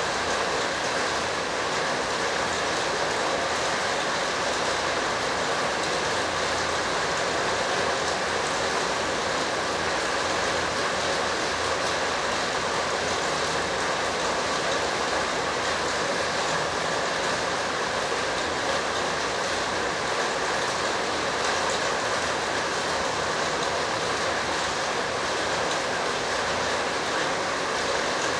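A loud, steady rushing noise with faint steady tones running through it.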